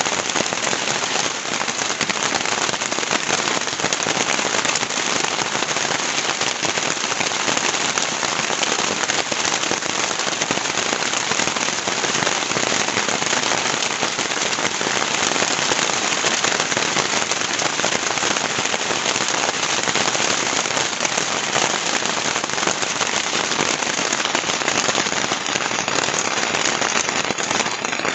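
Heavy rain falling steadily, a dense, even hiss of drops.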